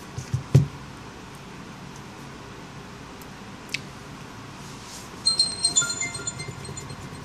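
Two low knocks near the start as the phone is handled, then about five seconds in a short, bright, tinkling chime of several high tones that fades away: the BlackBerry Z10's startup sound as it finishes booting.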